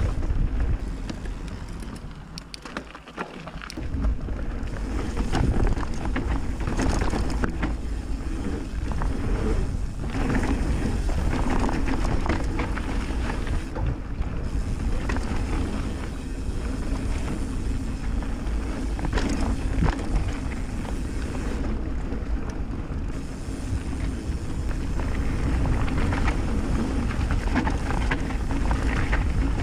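Mountain bike ridden fast over a dirt trail: tyres rumbling over the ground, chain and frame rattling with constant small knocks, and wind noise on the microphone. It eases off briefly a couple of seconds in, then picks up again.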